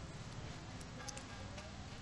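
Faint steady room hum with a few light ticks of a stylus on a writing tablet as handwriting is drawn.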